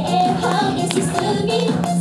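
A group of singers performing a pop song over music with a steady beat.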